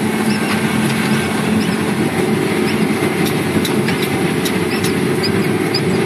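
John Deere 3520 sugar cane harvester running steadily under load, heard from inside its cab: a constant engine and machinery drone with a steady hum, and scattered light ticks.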